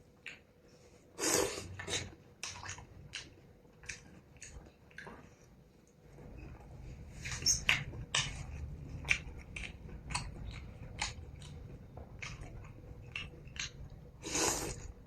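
Eating noodle soup close to the microphone: chewing and biting with many short clicks of utensils against the bowl, and a couple of longer noisy bursts. A low steady hum comes in a little before halfway.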